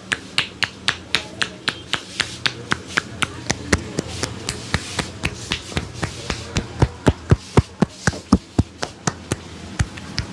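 A barber's hands striking in a rhythmic percussion massage, quick taps and pats at about five a second, the strikes growing heavier and more thudding in the second half.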